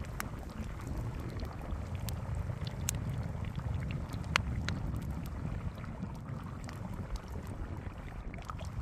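Steady low rumble, like wind buffeting the microphone, with scattered sharp crackles and clicks, the loudest about four seconds in.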